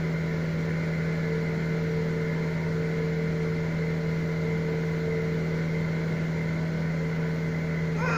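Steady mechanical hum from a running motor, an even low drone with a few fainter steady tones above it.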